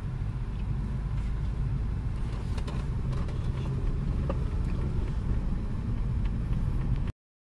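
Car cabin noise while driving: a steady low rumble of engine and road, which cuts off abruptly near the end.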